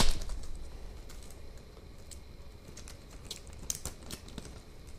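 Scattered light clicks and plastic crinkles as a saw blade is slid out of its thin clear plastic sleeve by hand, with one sharp click at the start.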